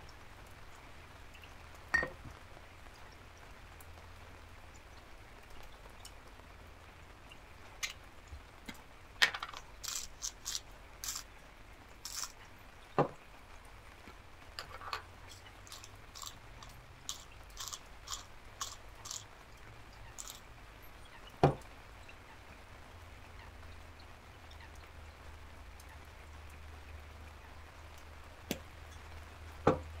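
A hand spice grinder being twisted, giving runs of quick crunchy clicks, with a few sharp knocks as grinders and jars are set down on a wooden table.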